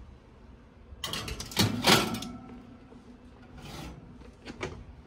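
Metal sheet pan scraping across a wire oven rack as it is slid in, a rasping slide about a second in, followed by a few lighter clicks near the end.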